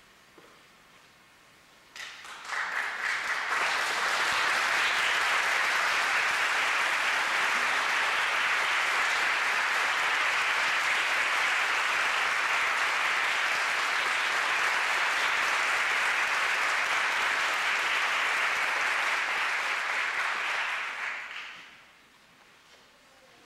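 Audience applauding: the clapping starts about two seconds in, builds quickly to a steady full applause, and dies away about two seconds before the end.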